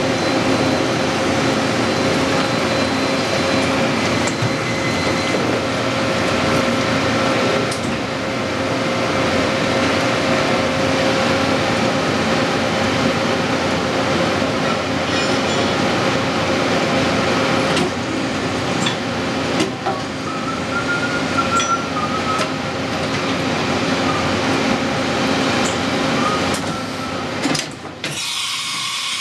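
CNC vertical machining centre running with a steady hum and a held tone, which fades about two-thirds of the way in. Then comes the automatic tool change: sharp clicks and clunks from the tool-change arm and magazine, a brief rising-and-falling whine, and a burst of air hiss near the end as the arm grips the tools in the spindle and magazine.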